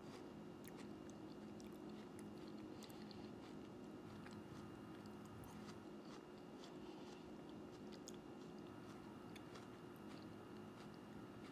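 Faint, close chewing of a mouthful of peanut butter hummus, with small scattered crunchy clicks, over a steady low hum.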